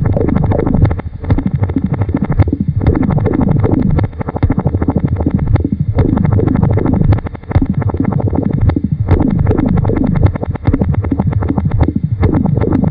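Experimental electronic noise music: a dense, rapid pulsing buzz with clusters of downward-sliding synthesizer tones repeating over and over, broken by brief dips about every second and a half.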